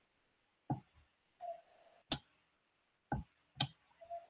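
About five scattered, sharp single clicks at a computer, from a mouse or keyboard being worked, with quiet between them.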